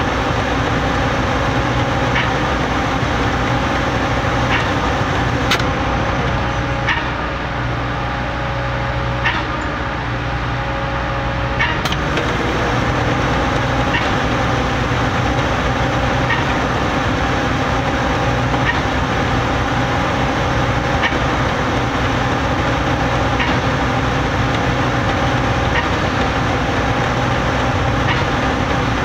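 Putzmeister trailer-mounted concrete pump pumping concrete: its engine runs steadily under load, with a sharp clack a little over every two seconds as the pump changes stroke.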